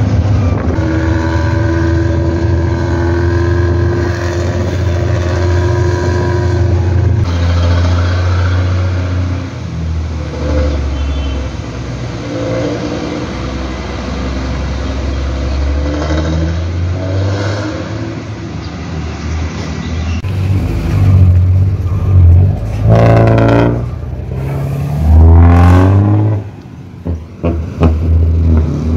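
Diesel engine and growling 'ngorok' exhaust of a Nissan Diesel CB87L bus, heard from the back seat. It runs at a steady pitch at first, then from about two-thirds in revs up in several loud rising surges with drops between, as when shifting up through the gears.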